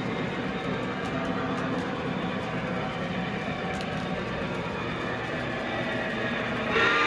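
A model train running on layout track, a steady rumbling hum of motor and wheels. Just before the end, a horn starts sounding.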